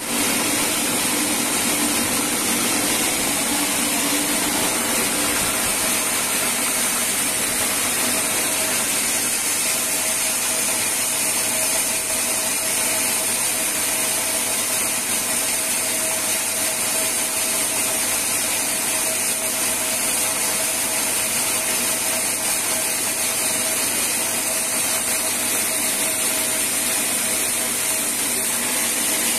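Band sawmill machinery running steadily, an even mechanical noise with a constant hum in it, with no cut starting or stopping.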